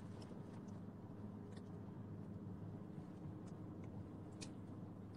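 Faint steady low hum of a car running, heard from inside the cabin, with a few faint ticks.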